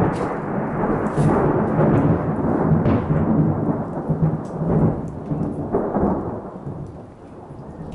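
Thunder from a close cloud-to-ground lightning strike: a sharp crack at the start, then a long loud rumble that fades over the last couple of seconds, with rain falling underneath.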